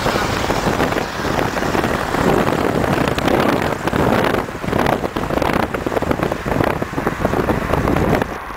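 Engines of a convoy of Ford Galaxie cars driving, a loud uneven vehicle noise mixed with wind buffeting the microphone, falling off shortly before the end.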